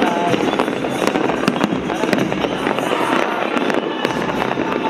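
Aerial fireworks bursting and crackling in a dense, rapid string of bangs.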